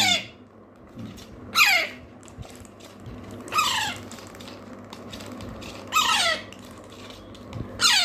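Parrot chicks giving loud food-begging calls while being spoon-fed hand-feeding formula: short screeches that fall sharply in pitch, about one every two seconds.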